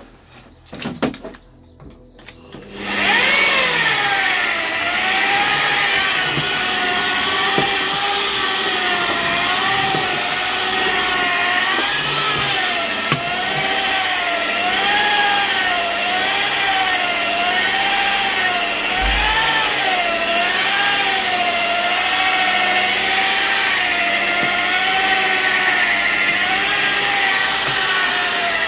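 Electric polishing machine starting up about three seconds in and running steadily, buffing freshly wet-sanded lacquer on a painted panel. Its whine dips and rises in pitch about once a second as it is pressed and swept across the panel.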